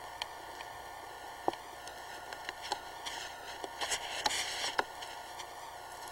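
Camera handling noise over a steady recording hiss: scattered clicks, and a few short crunches about three to five seconds in, as the camera is moved over snowy ground.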